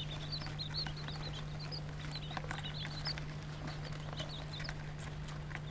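Week-old Coturnix (Japanese) quail chicks peeping: many short, high cheeps in quick succession, over a steady low hum.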